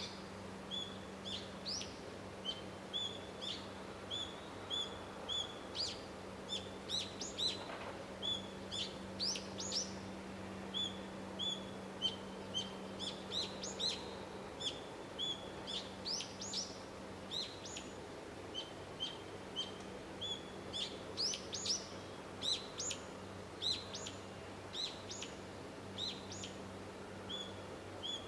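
Small birds chirping repeatedly, short high chirps coming several times a second with quick sweeping notes among them. A steady low hum runs underneath.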